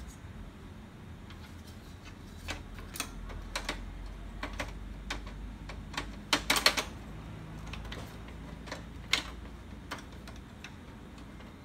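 Hard plastic clicks and knocks as the black side cover of an HP LaserJet P3015 laser printer is handled and pressed onto the frame, with a quick cluster of sharp clicks about six seconds in the loudest, over a low steady hum.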